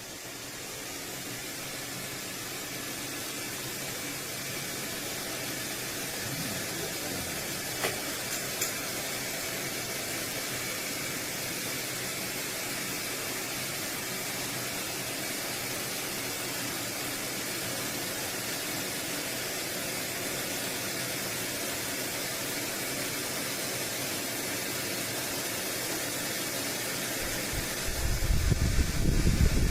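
Shark TurboBlade bladeless tower fan running, a steady rush of air that builds up over the first second or two and then holds, with two small clicks about eight seconds in. Near the end a loud, low rumbling comes in over it.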